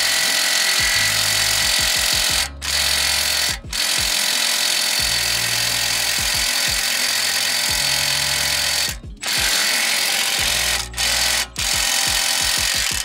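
Cordless stubby impact wrench hammering on a stubborn rear brake caliper bolt in long bursts, with brief pauses about five times. It seemed weak because it was driving a regular rather than an impact socket and spinning inside it. Background music plays underneath.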